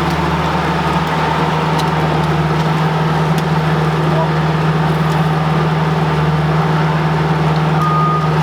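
An engine or motor running steadily at constant speed, an even low hum, under the light hiss of rain. A short high beep sounds near the end.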